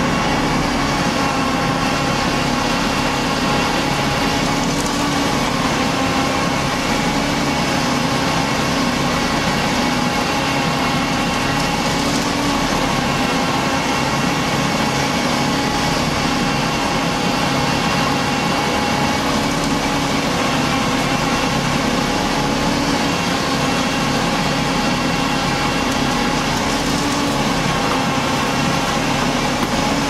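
Concrete mixer truck's diesel engine running steadily while its mixing drum turns: a constant, unbroken drone with several steady tones.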